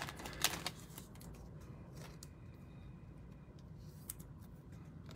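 Trading cards being handled: a few short slides and clicks in the first second, then a couple of faint ticks, over a low steady hum.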